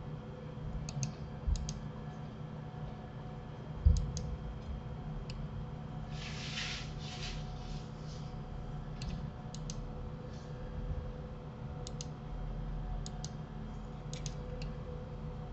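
Scattered computer keyboard and mouse clicks as a 3D program is operated, over a steady low hum. A low thump comes about four seconds in, and a brief hiss about six seconds in.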